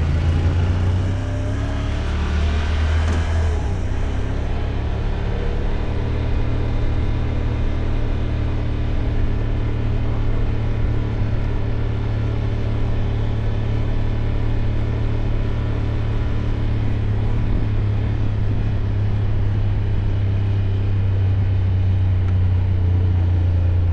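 Side-by-side UTV engine running steadily under way, a constant low drone mixed with road and wind noise. A brief rush of noise passes about two to four seconds in.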